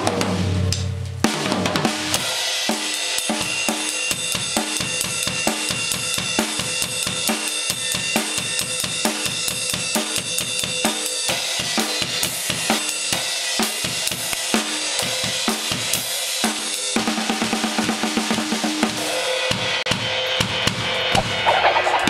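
Drum solo on an acoustic drum kit: a fast, continuous run of snare, bass drum and tom strokes with cymbals ringing over most of it.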